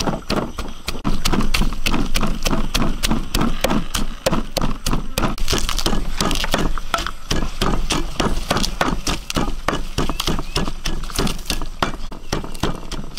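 Rapid, steady chopping, about four to five strokes a second, as a cleaver chops meat on a wooden board.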